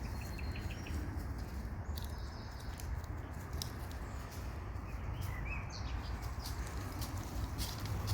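Faint, short bird chirps over a steady low rumble, with scattered soft ticks.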